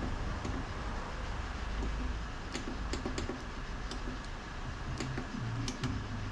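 Scattered light clicks and taps of the spot-welding dent puller and its tips being handled, over a steady low hum.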